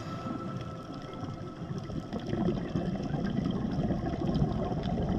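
Underwater sound on a coral reef: a steady low rumble of water with faint scattered clicks.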